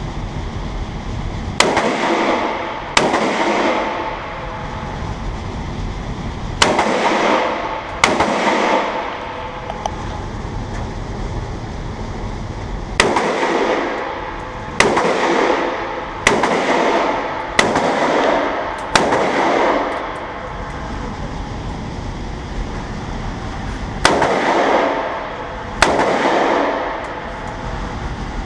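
AR-15-style rifle firing about ten single shots, mostly in pairs a second or so apart with longer pauses between pairs, each shot trailing off in an echo. The shots empty the magazine.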